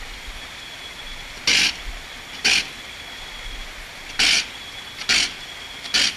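Sika deer blowing hard through its nose five times in short, sharp snorts about a second apart, with a longer gap after the second. It is trying to clear something lodged up its nose.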